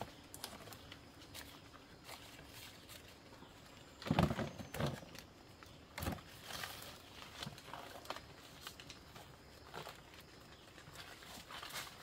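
Footsteps and rustling through dry leaf litter and leafy undergrowth as plants are pushed aside and pulled, in irregular crackles, with a louder thump and rustle about four seconds in.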